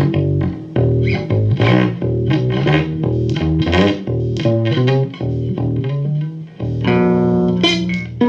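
Guitar music with a bass line: plucked notes changing several times a second, with a chord held about seven seconds in.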